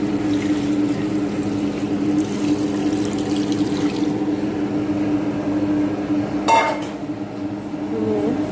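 Broth for chicken tinola bubbling at the boil in a stainless steel pot, over a steady low hum. About six and a half seconds in there is a short metallic clink.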